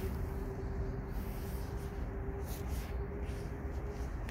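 Steady outdoor background rumble with a constant faint hum, and a few brief faint rustles.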